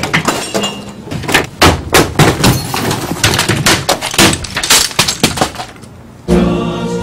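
A rapid series of crashes, bangs and clattering as a desktop computer and desk items are knocked over and thrown to the floor, about a dozen sharp impacts over five seconds. The impacts die away, and music starts just before the end.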